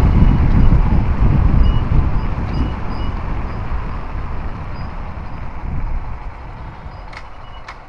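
Low, noisy rumble of a moving motorcycle, wind on the microphone and engine together, dying down steadily as the bike slows. Two sharp clicks near the end.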